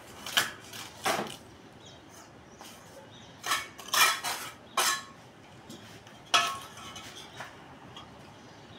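Steel bricklaying trowel scraping mortar and tapping against hollow clay bricks: a handful of separate sharp clinks and scrapes, the loudest about four seconds in and again past six seconds.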